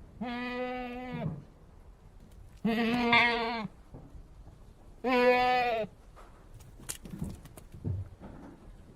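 A goat bleating three times, each call about a second long and held at a steady pitch, followed by a few short knocks.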